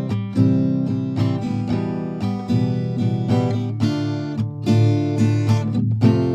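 Background music: acoustic guitar picking a melody with steady, evenly spaced plucked notes.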